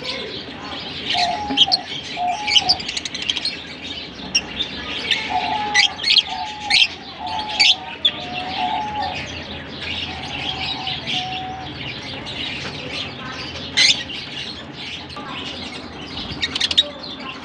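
A flock of masked and Fischer's lovebirds chirping and twittering nonstop, with sharp, high, loud chirps standing out every second or so. Through the first two-thirds, a lower short note repeats several times underneath the twitter.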